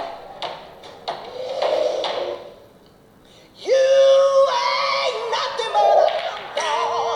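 Music with a singing voice. It fades almost to quiet for about a second midway, then comes back louder with held notes.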